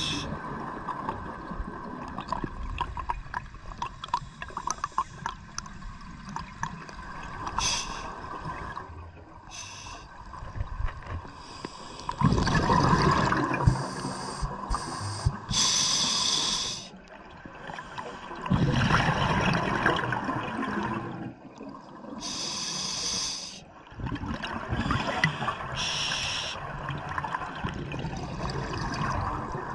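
Scuba divers breathing through regulators underwater: short hissing inhalations alternate with longer bursts of bubbling exhaled air, a few breath cycles in all.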